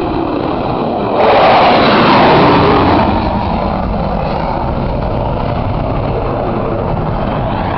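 F-16 fighter jet taking off in full afterburner: a loud, steady jet roar. It swells suddenly about a second in and eases back after about three seconds as the jet climbs away.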